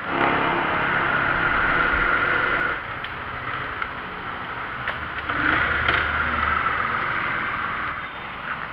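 Motor scooter engine running while riding, getting louder twice: once in the first three seconds and again from about five to eight seconds in, easing off in between.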